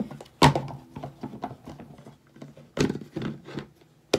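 Plastic slime containers and their clear plastic wrapping handled on a tabletop: a sharp knock about half a second in, a few more knocks and rustles near three seconds, and light tapping in between.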